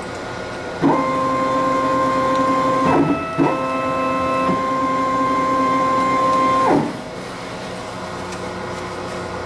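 Stepper motors of a CNC-converted lathe whining at a steady pitch as they drive the carriage. There are two moves, about two and about three seconds long, with a short break between them and sharp starts and stops. A lower steady machine hum runs underneath.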